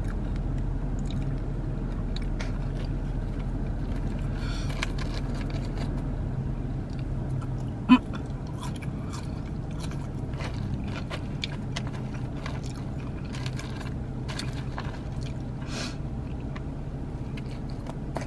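Chewing on cheese-covered fries, with a plastic fork clicking and scraping in a plastic takeout tray, over a steady low hum from the car. One sharp click about eight seconds in is the loudest sound.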